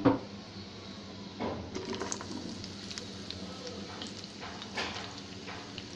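Sliced onions sizzling as they fry in hot ghee and oil in a pan, with a wooden spatula scraping and stirring now and then.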